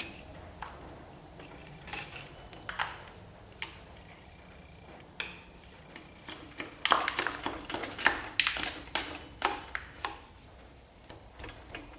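Small metal clinks and taps from hand tools and small-block Chevy engine parts being handled. They come a few at a time at first, then turn into a busy run of clattering about seven seconds in.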